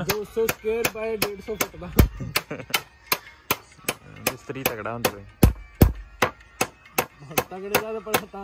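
Background song with a steady clap-like beat about three times a second and a singing voice that comes and goes. Three heavier, deeper thumps stand out, one about two seconds in and two close together past the middle.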